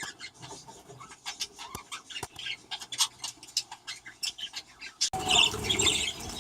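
Budgerigars chirping, with many short sharp clicks and scratches among them. About five seconds in, the sound switches suddenly to louder, dense chattering of a whole flock.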